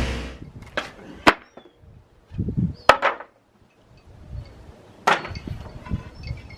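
A handful of separate sharp wooden knocks, a second or two apart, like pallet boards being knocked or set down.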